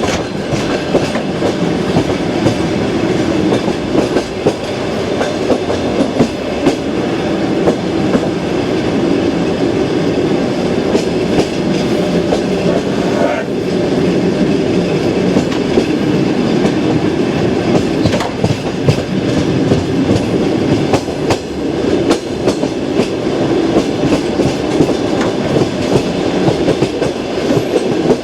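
Clickety-clack of a long-distance passenger train's wheels over the rail joints of jointed track: repeated sharp clicks over a steady running rumble, heard from aboard the train.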